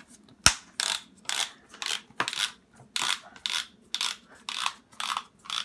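Ratcheting dial closure on an EXOS sports cast being turned to adjust its fit: a steady run of sharp clicks, about three a second, the loudest one about half a second in.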